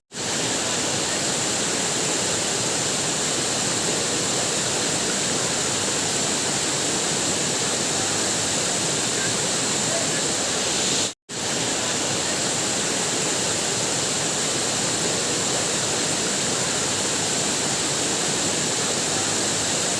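Waterfall: a steady rush of falling water that cuts out for an instant twice, at the very start and about eleven seconds in.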